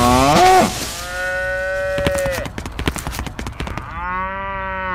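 Cows mooing: a short call, then a long steady moo, then another moo near the end, with a quick run of clicks between the calls.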